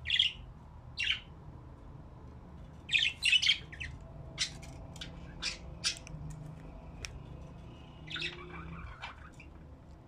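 Budgerigars giving short, scattered chirps and squawks, with the loudest quick cluster about three seconds in.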